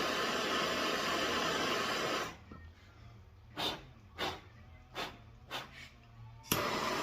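Handheld gas torch burning with a steady hiss as it burns carbon out of a spark arrestor screen. The torch cuts off about two seconds in, four short hissing bursts follow, and near the end it relights with a sharp click and hisses steadily again.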